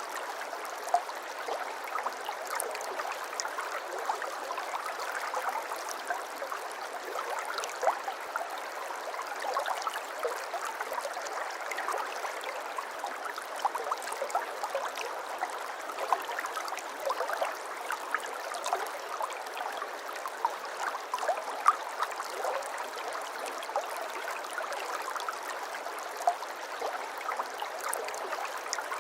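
Water of a small stream trickling and babbling steadily over stones, with many small splashes and drips.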